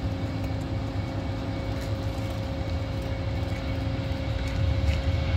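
Airbus A320-family jet airliner on its landing approach, its engines a steady low rumble that grows a little louder near the end as the plane nears the runway.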